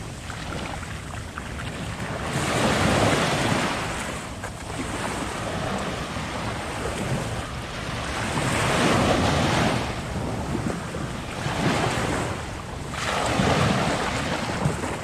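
Ocean waves breaking and washing up on a sandy beach, the surf swelling and receding several times, with wind buffeting the microphone.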